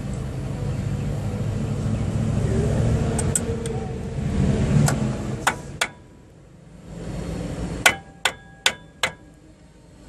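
A steady low rumble that dies away about six seconds in, with a few light clicks, then four sharp metal-on-metal strikes in quick succession, each ringing briefly, like a hammer tapping steel brake parts.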